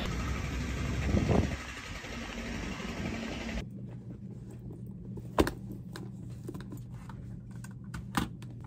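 Steady rumble of a subway station platform with a train, with a brief rising tone about a second in. It gives way abruptly to a quiet, steady low hum with a few sharp clicks, the loudest around the middle and another near the end, as a handbag is handled at a desk.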